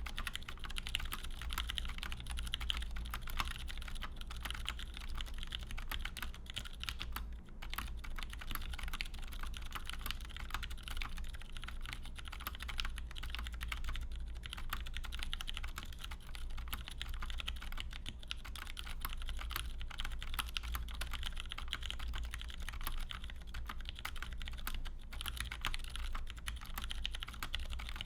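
Continuous typing on a GON HHKB custom 60% mechanical keyboard with lubed and stickered 62 g Ergo Clear tactile switches and GMK Triumph Adler keycaps: a dense, steady stream of keystroke clacks over a low steady hum.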